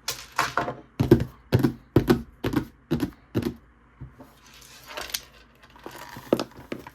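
Hands handling and opening a microphone's cardboard packaging: a quick run of about eight thuds and clicks, roughly two a second, then softer rustling and taps.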